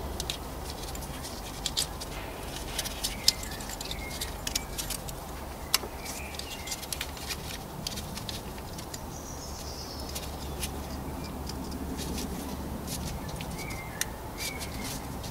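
Scattered sharp clicks and light plastic taps as a gloved hand handles the camshaft adjuster magnet's wiring plug and pushes it back into its socket. The sharpest clicks come about three and six seconds in.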